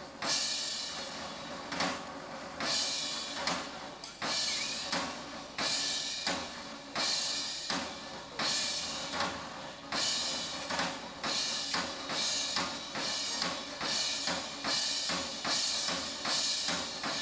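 Music driven by a drum kit: a steady beat of drum hits with cymbals ringing over it.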